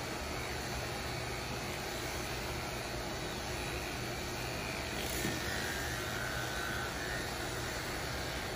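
Corded electric dog grooming clippers running steadily, a constant motor hum with hiss as they shave a Chow Chow's coat short. The sound is briefly louder about five seconds in.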